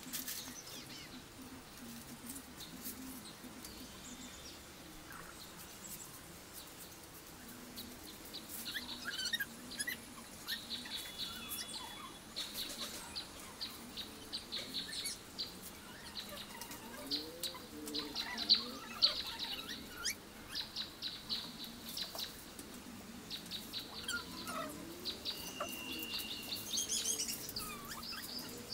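Small birds chirping in quick runs of short, high notes that come and go, over the soft rustle and crackle of dry palm-leaf strips being woven by hand.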